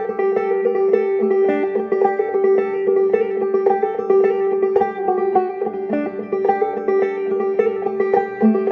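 Clawhammer banjo playing a steady, continuous melody of quick plucked notes over a ringing drone string, in a dark, modal folk style.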